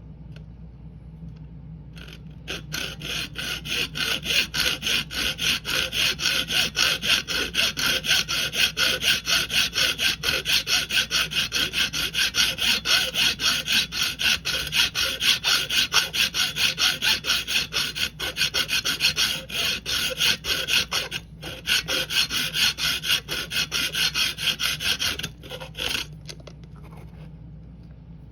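Hacksaw sawing through the metal of a laminated steel padlock in rapid, steady back-and-forth strokes. It starts about two seconds in, breaks off briefly twice, and stops near the end.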